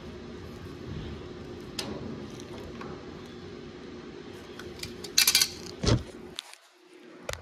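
Pliers clicking and clattering against the metal head and brass fitting of a heating oil filter, with a quick rattle of metal clicks about five seconds in and a sharp knock just after, over a steady low hum.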